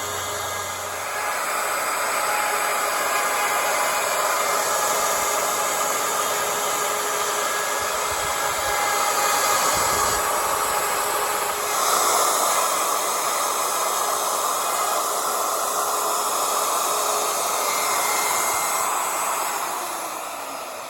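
Ryobi handheld router running at full speed, its bit cutting a hinge mortise into the wooden window frame: a loud, steady whine with rough cutting noise that swells as the bit bites, then begins to wind down at the very end.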